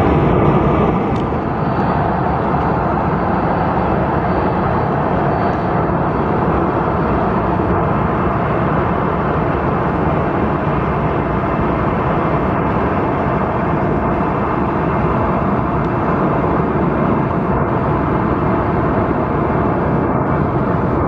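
Boeing 737-700 jet engines at takeoff thrust during the takeoff roll, a steady, loud, even rush of engine noise.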